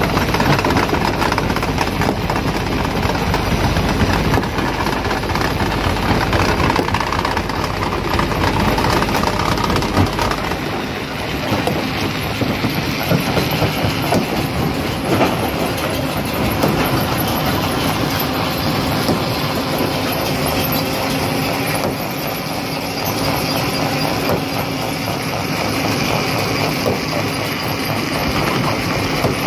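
Rock crusher running and crushing stone: a steady mechanical din full of clattering and grinding rock. A deep low rumble under it falls away about a third of the way through.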